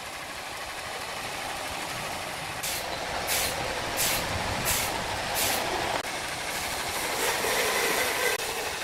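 Horizontal band sawmill running, its blade cutting lengthwise through a large log, with steady machine noise. In the middle come five sharp hissing bursts, evenly spaced, and a steady hum rises near the end.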